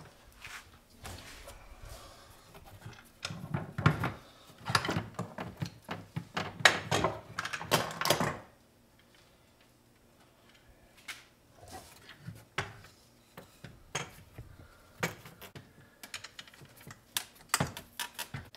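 Wooden drawer parts being handled and worked on a workbench: a dense run of knocks, taps and scrapes for about five seconds, a short lull, then scattered knocks and taps.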